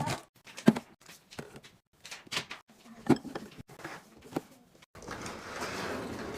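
Groceries and snack packages being set into a fridge drawer during a restock: a run of separate clicks, knocks and packaging rattles. About five seconds in, a steady hiss takes over.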